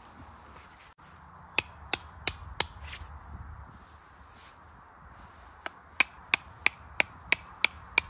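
Sharp knocks struck in quick succession, about three a second: a run of four, then after a pause a run of about eight.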